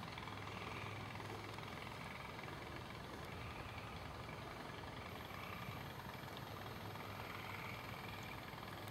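Diesel freight locomotives approaching at about 42 mph, giving a steady low engine drone.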